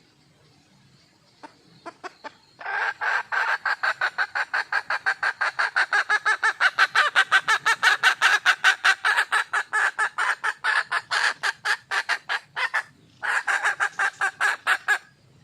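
Hen red junglefowl calling: a few single clucks, then a long, rapid, even run of clucks at about five or six a second, a brief pause, and a second shorter run.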